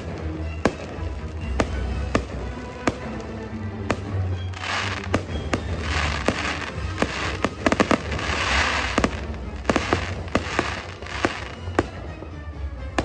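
Fireworks going off: a run of sharp bangs and pops, with bursts of crackling between about five and nine seconds in. Music with a steady low beat plays underneath.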